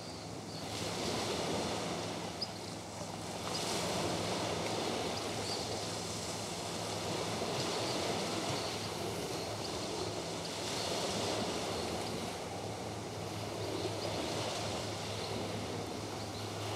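Gentle ocean surf washing onto a beach, swelling and ebbing every few seconds.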